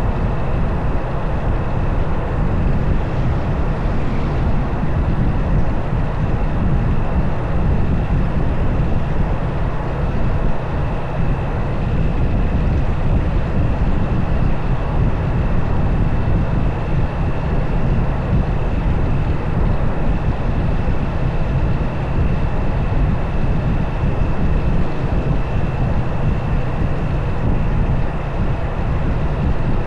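Motorcycle riding along: wind buffeting the camera's microphone over the engine and road noise, with a thin steady high whine throughout.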